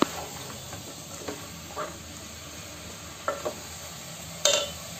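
Wooden spatula stirring singri pods frying in oil in a metal pot: a steady sizzle with a few short scrapes and knocks of the spatula against the pot, the loudest near the end.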